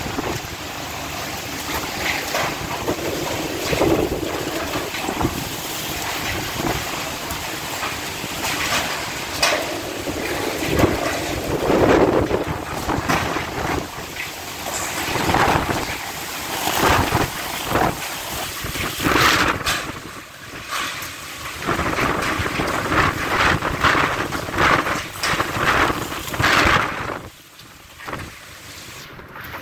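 Typhoon winds gusting through heavy rain, rising and falling in swells, with wind buffeting the microphone; the gusts ease near the end.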